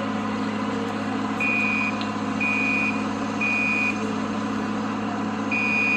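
Building fire alarm sounding the temporal-three evacuation signal: half-second high beeps a second apart in groups of three, with a pause of about a second and a half between groups. A steady low hum runs underneath.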